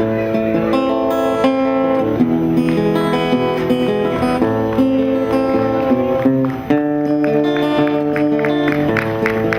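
Instrumental music led by an acoustic guitar, with held notes and chord changes every second or so.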